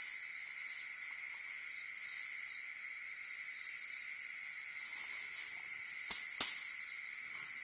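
Steady night chorus of crickets and other insects, with two sharp clicks close together about six seconds in.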